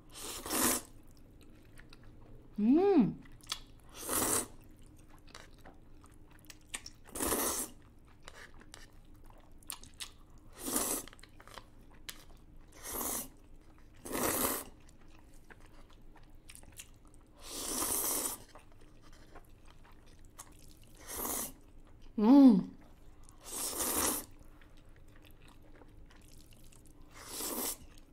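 Samyang fire noodles being slurped up by mouth from chopsticks: about a dozen short, wet slurps, one every two to three seconds. Twice there is a brief hummed vocal sound from the eater between mouthfuls.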